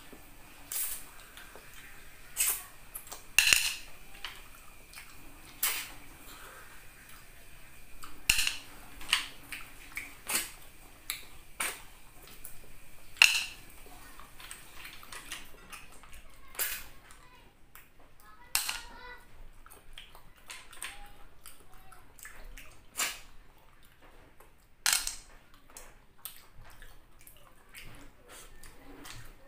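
A person sucking cooked snails out of their shells and eating with their hands: sharp, wet slurps and mouth smacks at irregular intervals, over a dozen of them, the loudest about three and a half seconds in and again at about thirteen seconds.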